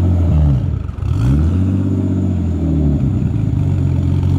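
Nissan Skyline R32's RB straight-six running through a newly fitted aftermarket exhaust, revved and let back down: the revs drop about half a second in, climb again after a second, hold, fall back near the end and begin to rise once more.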